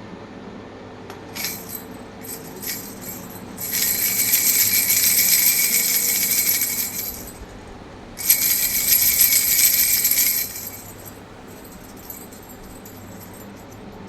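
Baby rattle toy being shaken: a few single shakes, then two spells of rapid shaking of about three seconds each, with a bright jingling ring.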